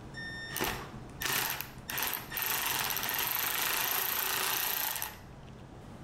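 Cordless power screwdriver backing out a T20 Torx screw: a few short pulses of the motor and gearbox, then a steady run of about three seconds that stops abruptly.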